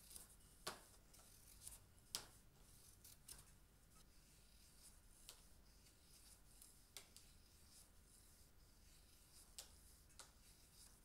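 Faint, irregular scraping strokes of a sloyd knife whittling a stick, each cut paring a shaving off the wood to round it. About eight strokes, the loudest two in the first few seconds.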